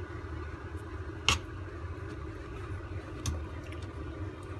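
Metal ladle stirring a thick coconut-milk dessert in a stainless steel pot, with a sharp clink of ladle on pot about a second in and a softer one about three seconds in, over a steady low hum.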